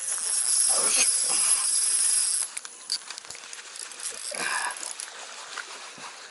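A hooked black bass splashing at the surface as it is landed, a loud hissing splash for about two and a half seconds, then scattered knocks and rustles as the fish is handled in the boat.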